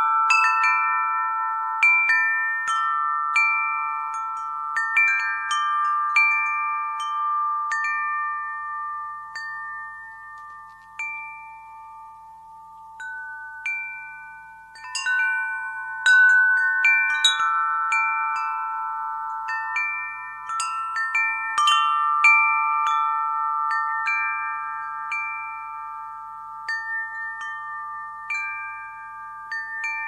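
Wind chime ringing: irregular strikes of several tuned tones that ring on and overlap. The strikes thin out about a third of the way in, then come thick again a little past the middle.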